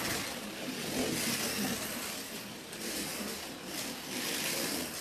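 slot.it slot car lapping a routed track, its small electric motor whining and its guide braids and tyres hissing along the track. The sound swells and fades repeatedly as the car comes round.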